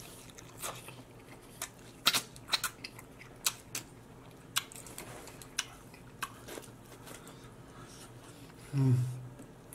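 A man chewing a big mouthful of food with his mouth open, with wet smacking and sharp irregular clicks. Near the end there is a short low vocal "mm"-like sound.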